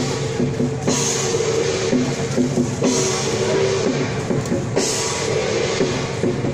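Loud procession music, led by drums, with held low tones underneath and a bright crash about every two seconds.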